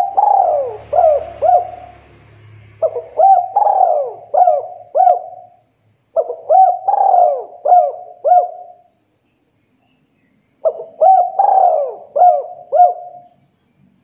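Spotted dove cooing: four phrases a second or two apart. Each phrase is a quick run of four or five short coos, one of them longer and falling in pitch.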